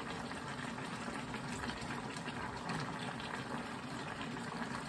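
Mussels and leeks simmering and sizzling in a hot wok, a steady crackle, while cooking rice wine is poured in a little at a time.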